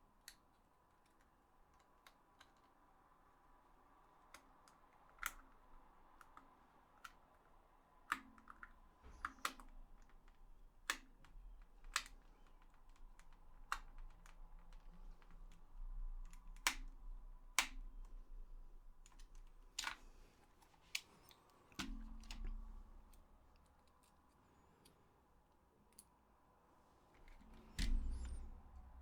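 Scattered sharp clicks and taps of small plastic parts and tools being handled during PS4 controller reassembly, with a couple of dull bumps near the end.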